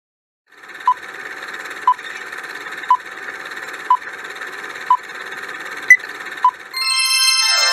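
Quiz countdown timer sound effect: a steady hiss with a sharp tick about once a second, the last two ticks higher and closer together, then a bright ringing chime near the end as time runs out.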